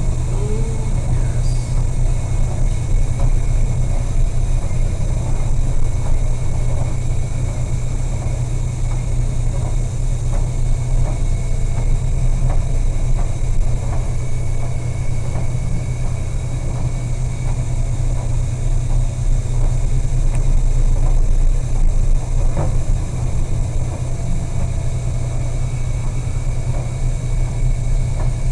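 Steady low drone of a large ship's engines and onboard machinery, with a faint high whine over it.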